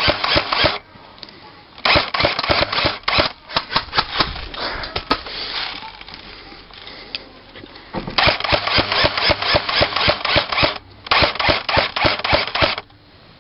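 Airsoft gunfire: long stretches of rapid, sharp clacks, with a short lull about a second in and a quieter spell from about five to eight seconds in.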